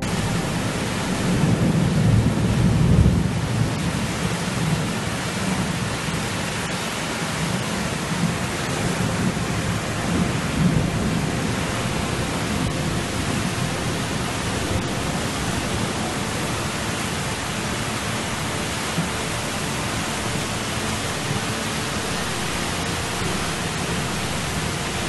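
Torrential rain pouring down in a steady, loud hiss, with floodwater rushing through the street. Low rumbles of thunder swell up about two seconds in and again around ten seconds.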